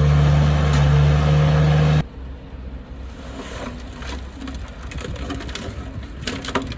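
A heavy machine's engine running steadily and loudly, cut off abruptly about two seconds in. After that comes a much quieter stretch of scattered crackles and clicks.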